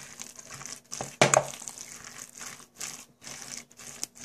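Wooden spatula stirring and mashing thick potato salad dressed with mayonnaise and mustard in a stainless steel bowl: irregular scraping, wet strokes, one louder a little over a second in.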